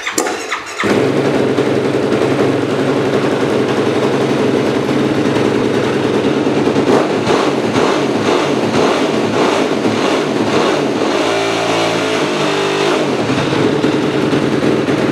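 2009 Yamaha YFZ450R ATV's single-cylinder four-stroke engine catching on the electric starter right at the start, then idling steadily. Its note changes briefly about two-thirds of the way through.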